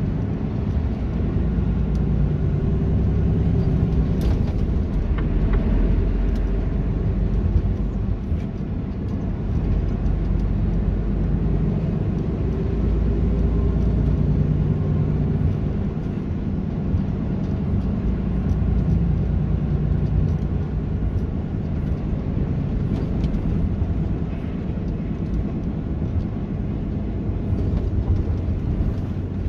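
Heavy truck running: a steady low engine drone with road rumble.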